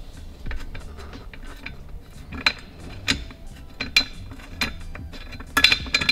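Allen key working a hex-headed bolt out of the lower brace of an electric power steering column: sharp metallic clicks and clinks at irregular intervals of about a second, with a quick cluster of them near the end.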